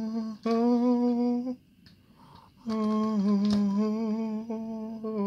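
A man humming a slow tune in long held notes. Two notes of about a second each come first, then a pause of about a second, then one long note about two and a half seconds in length that steps slightly in pitch.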